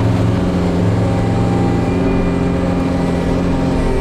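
John Deere 333G compact track loader's diesel engine running steadily.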